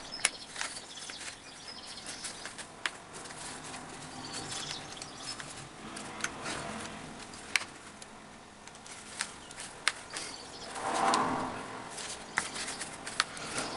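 Hands working a headphone ear cushion back onto its plastic earcup: scattered small clicks and ticks of plastic over soft rustling and rubbing, with a louder scuffing swell near the end.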